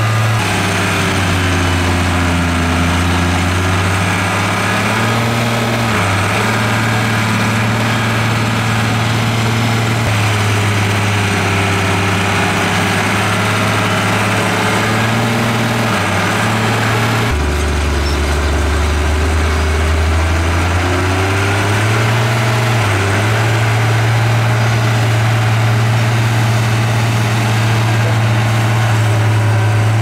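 Diesel engine of heavy earthmoving machinery running steadily, its pitch dipping and picking up again several times. The sound changes abruptly about seventeen seconds in.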